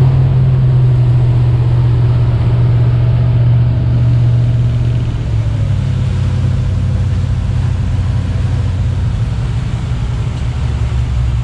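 Charter fishing boat's engine running with a steady low drone, its pitch dropping slightly about five seconds in.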